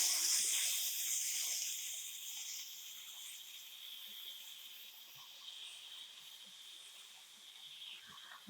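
Ground pork smash-burger patties sizzling on a hot flat-top griddle. The sizzle is loud at first, just after the smash, and dies down over the first few seconds to a faint hiss.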